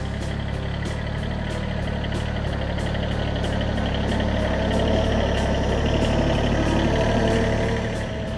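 Kubota B7001 compact tractor's small two-cylinder diesel engine running steadily as the tractor drives across the forest floor. It grows louder as it passes close by about halfway through, then drops back near the end.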